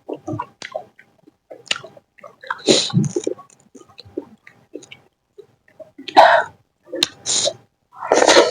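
Close-miked eating: chewing and wet mouth clicks, with four louder, noisy bursts spread through.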